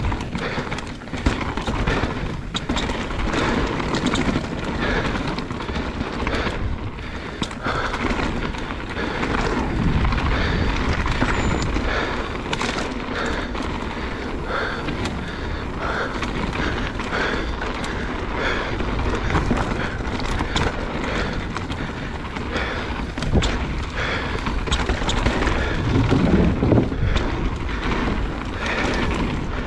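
Mountain bike riding down a rough trail: tyres rolling over dirt and rock, with a steady low rumble and many small knocks and rattles from the bike.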